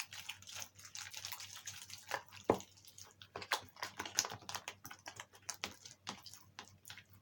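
Slime being kneaded and squeezed by hand, making a quick, irregular run of clicks and pops, with one louder pop about two and a half seconds in.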